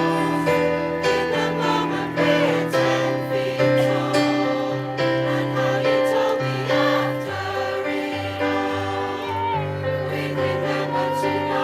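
Choir singing a song, held notes moving from chord to chord without a break.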